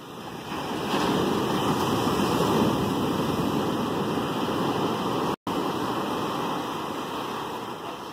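Ocean surf breaking on a sandy beach: the rush of a wave swells about a second in, then slowly eases off. The sound cuts out for an instant about five seconds in.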